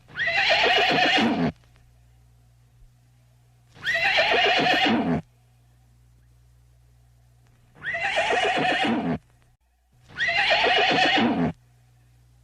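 A horse whinnying four times, each call about a second and a half long and falling in pitch.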